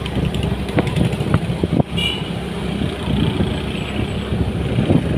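Vehicle driving on a road, heard from on board: a steady engine and road rumble with scattered small knocks and bumps.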